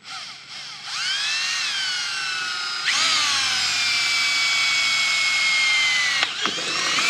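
Cordless drill with a twist bit boring into an aluminium part. After a few short trigger pulls, a steady motor whine starts about a second in and gets louder about three seconds in. It sags slightly in pitch as the bit is pressed in, stops after about six seconds, and is followed by a couple of brief spin-ups.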